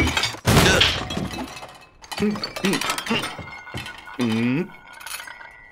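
Animated-film sound effects of porcelain cups and dishes clinking and rattling, with a loud clatter about half a second in. Short strained voice sounds from a character come between the clinks, with a longer one about four seconds in.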